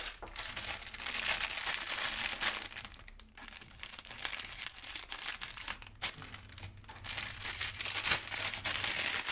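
Crinkling of a metallized plastic snack packet being handled and cut open with scissors, then a small foil toy pouch inside being pulled apart, with a couple of brief pauses.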